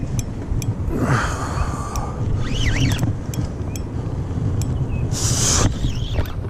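Wind buffeting an action camera's microphone, a steady low rumble, with a few short high squeaks and a brief hiss about five seconds in.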